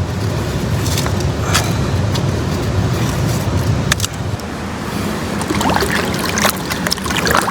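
Digging into gravel and rock with a hand tool: scattered scrapes and clinks of stones over a steady low rumble.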